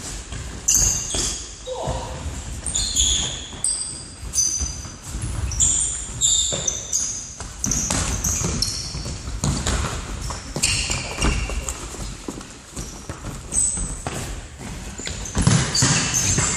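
Shoes squeaking on a sports hall floor and a football being kicked and thudding, all echoing in a large hall during an indoor football game. The squeaks come again and again, short and high.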